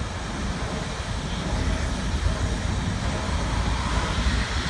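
Steady low rumble of heavy machinery, with no distinct beats or chuffs, from the Big Boy 4014 steam locomotive approaching slowly at a distance, mixed with highway traffic on the overpass.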